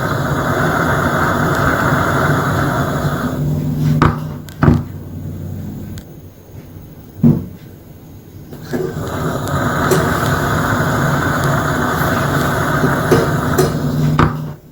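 Gas lamp burning with a steady hissing roar that stops about three and a half seconds in. Sharp pops follow at intervals, the popping noise the lamp is making. The roar starts again about nine seconds in and cuts off just before the end.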